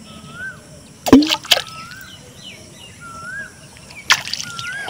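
Sharp splashes and plops in shallow pond water, two a little after a second in and another about four seconds in, from a climbing perch striking and thrashing on a hook line at the surface. A bird repeats a short rising whistle in the background.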